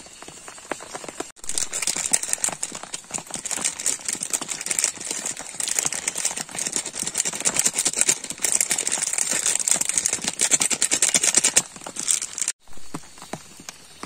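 Heavy rain beating on a tent as a dense crackling patter, starting suddenly about a second in and cutting off near the end.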